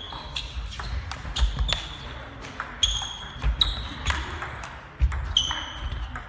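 Celluloid-type table tennis balls clicking off rackets and the table during a rally, a quick irregular run of hits, several with a short high ringing ping.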